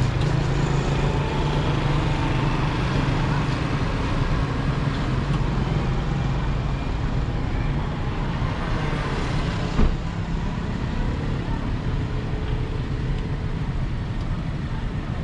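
Road traffic: cars passing on a nearby road, with a steady low engine hum, stronger at first. A single sharp thump about ten seconds in is the loudest moment.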